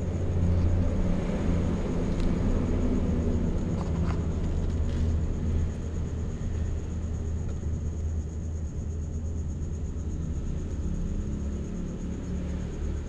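A steady low rumble or hum with a thin, faint high-pitched whine over it, and a few faint ticks.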